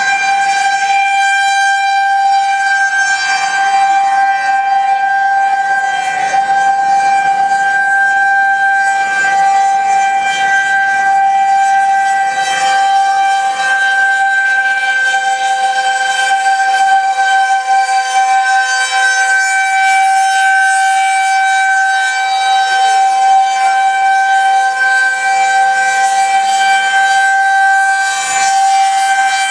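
Electromechanical outdoor tornado warning siren sounding a loud steady tone that holds one pitch, without rising or falling.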